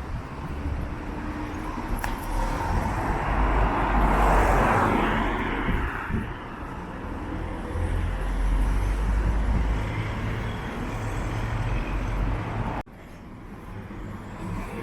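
Street traffic with a car passing about four to five seconds in, under a constant low rumble of wind buffeting the microphone. The level drops suddenly near the end.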